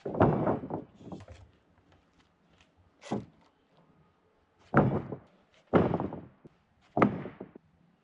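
Freshly milled Douglas fir boards being dropped onto a stack of lumber: a series of about five hollow wooden thunks and clatters, the first and the one just before the middle the loudest.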